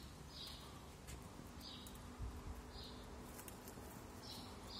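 Faint sparrow chirps: about five short, high cheeps, a second or so apart. There is a soft low thump about two seconds in.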